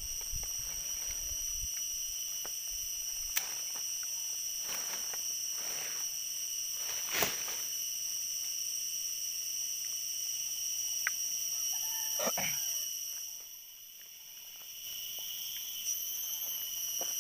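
Steady high-pitched insect chorus holding several even tones, with a few sharp clicks over it, the loudest about seven seconds in. The whole sound dips briefly near the end.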